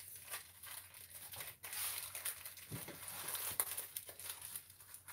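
Plastic wrapper of a Cadbury Curly Wurly bar being torn open and crinkled by hand, an irregular run of crackling rustles.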